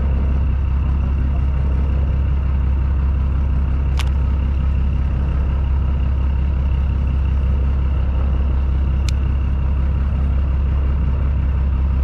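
Boat engine idling steadily, a loud even low hum, with two sharp clicks about four and nine seconds in.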